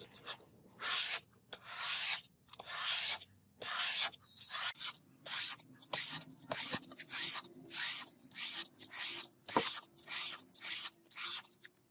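Repeated hand strokes of an abrasive rubbing over the rusty steel of a katana blade, a rasping scrub about one to two times a second, each stroke a short hiss.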